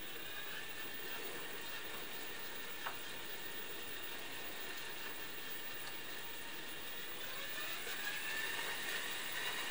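Electric drive motor and gearbox of an RC Schlüter 1250 tractor model running with its wheels spinning off the ground: a faint steady whine over a hiss, held at a constant speed by a speed-control module. About seven and a half seconds in the whine rises in pitch and gets a little louder as the speed is raised. A single click about three seconds in.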